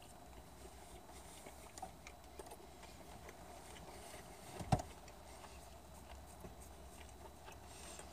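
Faint eating sounds: small scattered clicks and mouth noises of someone chewing chicken nuggets over a low steady room hum, with one sharper click a little past halfway.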